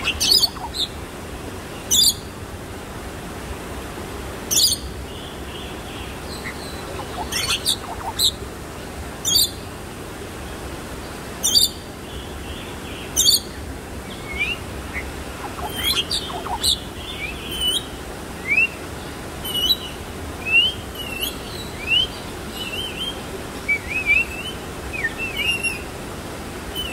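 Bali myna calling: loud, harsh single calls every two seconds or so, then from about halfway a run of short rising whistled chirps that come faster toward the end.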